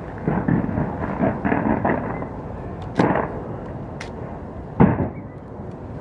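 Aerial fireworks bursting: a run of smaller pops and crackles, then sharp bangs about three seconds in and again near the end, the last one the loudest.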